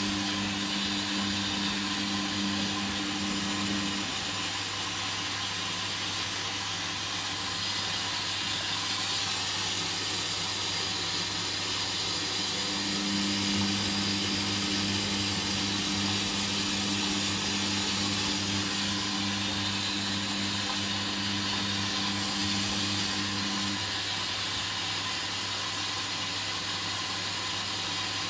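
Hoover Dynamic washing machine running during its rinse stage: a steady hiss with a low hum that cuts out about four seconds in and comes back from about thirteen to twenty-four seconds in.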